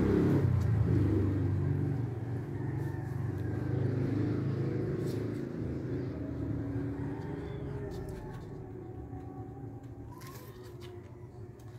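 A low engine rumble, loudest at the start and fading steadily away, like a motor vehicle moving off into the distance.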